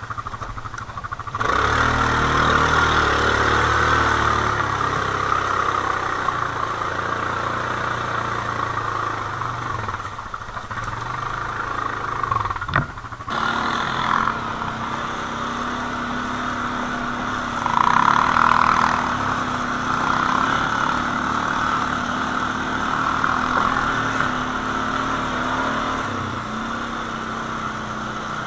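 Quad bike (ATV) engines running, the pitch and loudness rising and falling as the throttle changes, with a brief sudden break about thirteen seconds in.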